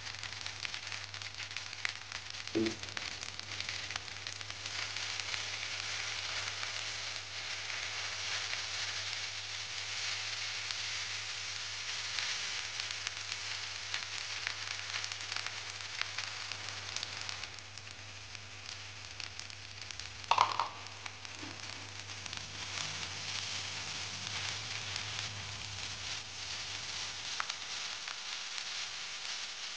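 Fried rice with bean sprouts sizzling in a nonstick frying pan as it is stirred: a steady frying hiss with a low hum beneath. A sharp clack about twenty seconds in is the loudest sound.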